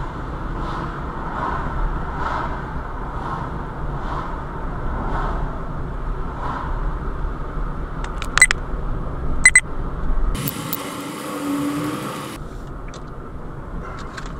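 Car cabin noise while driving at town speed: a steady rumble of tyres and engine. A soft tick repeats about every 0.7 s through the first half. Two sharp clicks come a second apart past the middle, then a couple of seconds of hiss.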